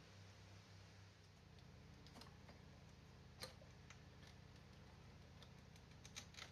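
Near silence, with a few faint, scattered clicks from hands working loose the heater hose connections in the engine bay.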